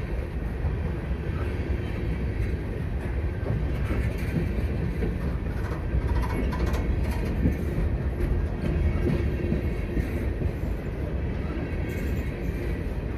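CSX freight train of aluminum hopper cars rolling past: a steady rumble of steel wheels on the rails, with clickety-clack over the rail joints and scattered clanks.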